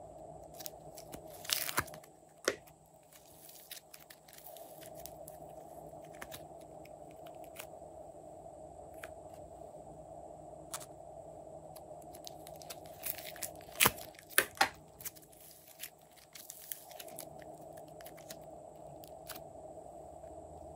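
A small plastic slime container being handled: scattered sharp clicks and taps of fingers and nails on the plastic, with a cluster of louder clicks about two seconds in and another about two thirds of the way through, over a steady faint hum.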